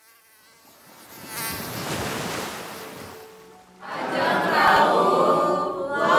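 A mosquito buzz that swells and then fades. About four seconds in, it gives way suddenly to a group of young people singing together.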